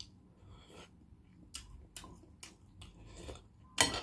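Quiet scattered clicks and taps of eating and handling boiled balut eggs, with a louder clatter near the end.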